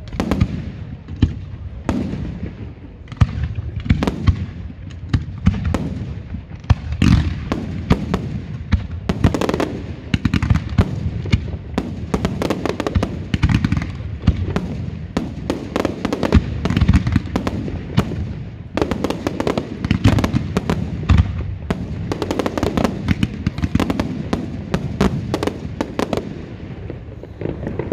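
Fireworks finale barrage: aerial shells and multi-shot cakes firing and bursting in a continuous stream of sharp bangs and crackling, growing denser about seven seconds in.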